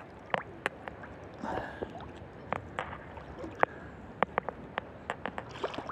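Sea water lapping and sloshing around a person standing in it, with many short, sharp splashes close by at irregular intervals.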